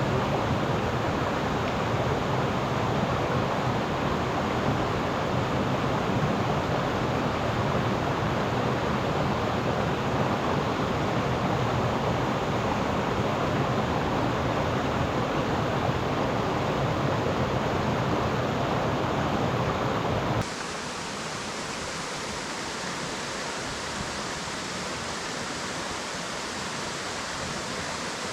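Steady rushing of a waterfall. About twenty seconds in it cuts abruptly to a quieter, hissier rush of water.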